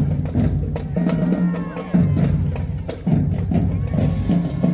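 Marching band playing: low brass holding loud sustained notes over drum and percussion hits, with new loud blasts about two and three seconds in.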